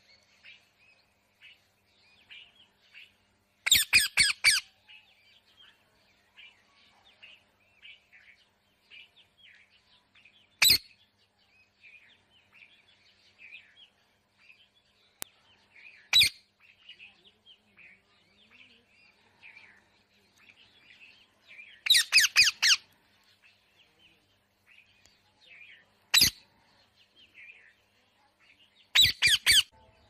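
Peafowl giving loud, harsh calls: three short bursts of about six quick notes each, with single calls between them. Underneath, small birds chirp steadily.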